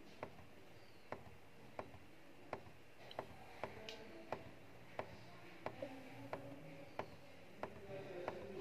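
Arrow key on a Brother DCP-L2540DW printer's control panel pressed over and over, a short click roughly every two-thirds of a second, scrolling through characters while a Wi-Fi network key is entered.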